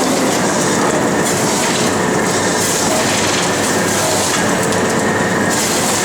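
Mackerel filleting machine running with a steady mechanical clatter, with a higher hiss that comes and goes every second or so.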